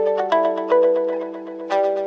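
Background music: a light tune of short notes that each strike and fade, over a steady held low note.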